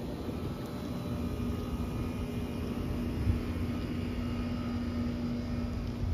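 Outdoor background noise: an uneven low rumble, with a steady low hum that comes in about a second and a half in.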